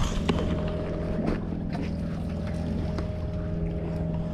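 Boat engine idling: a steady low hum, with a few faint clicks and knocks.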